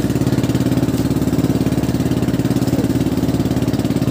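Engine of a motorized outrigger fishing boat running steadily, an even low engine note with regular firing pulses.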